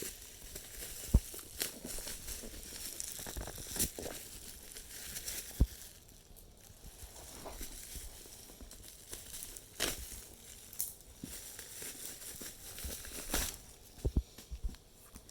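Parcel packaging being crinkled and torn open by hand, with scattered sharp knocks and clicks from handling.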